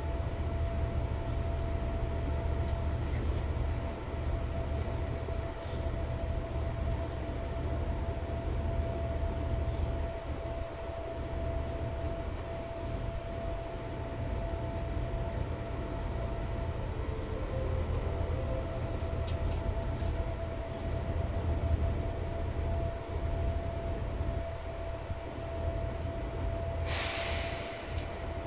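Seibu 2000 series electric train running on the track: a steady low rumble with a constant high tone over it. About 27 seconds in there is a short burst of hiss.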